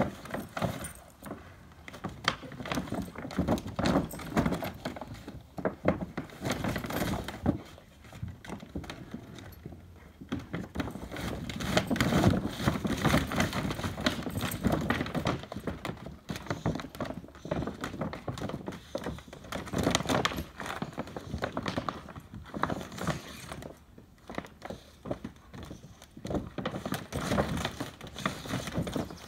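A hard plastic kiddie pool knocking, flexing and crinkling as two Rottweilers push, bite and drag it, in an irregular string of thumps and clatter, with a chain collar jangling.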